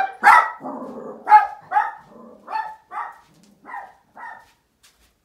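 Small dog alarm-barking at someone arriving at the house: a rapid run of about eight loud barks, roughly two a second, the loudest near the start, stopping about four and a half seconds in.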